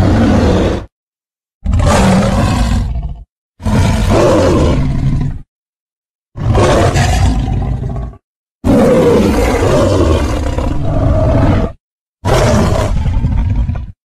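Custom-made creature sound effects for the Scorpius rex hybrid dinosaur: six separate roars of one to three seconds each, cut apart by dead silence. The longest, about three seconds, comes a little past the middle.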